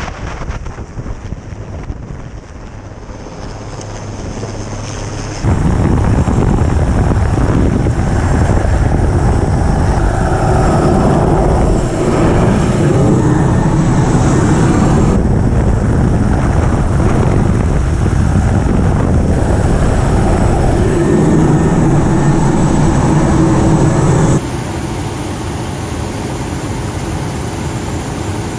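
Rescue helicopter's engines and rotor heard from the open cabin door, a loud steady drone with wind rushing past. It comes in abruptly about five seconds in and drops sharply to a lower steady drone near the end.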